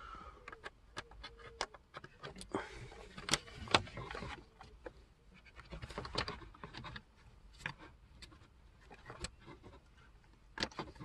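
Small plastic clicks and rubbing of wiring connectors and cables being handled and plugged back into a car's centre-console trim piece, the clicks coming irregularly, with a longer stretch of rustling a few seconds in.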